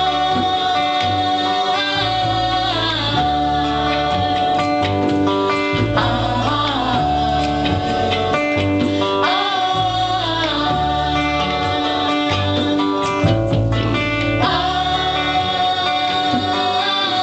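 Live acoustic band playing: a steel-string acoustic guitar and an upright double bass under a female lead voice singing long held notes.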